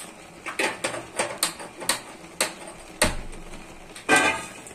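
A run of sharp, irregular clicks and knocks, then a louder ringing metallic scrape about four seconds in as a stainless steel frying pan is moved across the gas stove's grate.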